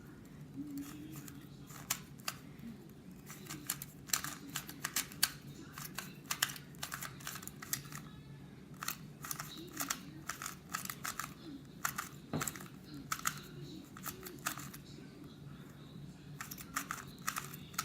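A 2x2 Rubik's cube being turned by hand during a solve: quick runs of plastic clicks as the layers snap round, in bursts with short pauses between them.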